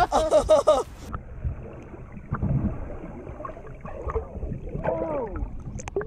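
A short call at the start, then the sound turns suddenly muffled and dull, as if picked up through an underwater camera's housing: water sloshing with dull knocks, and a muffled voice about five seconds in.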